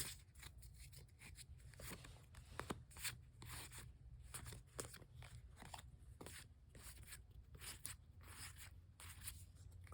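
Faint rustling and clicking of Pokémon trading cards and their foil pack being handled, many small sounds spread through, with a low steady hum beneath.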